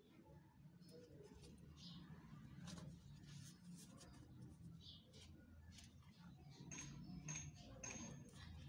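Near silence: a faint low hum with scattered soft rustles and clicks, as of handmade paper dolls being handled and set down.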